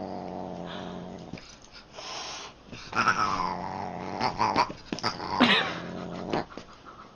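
Siamese cat growling low and steadily, breaking twice into loud yowls that slide down in pitch, about three and five and a half seconds in, while sparring with a dog.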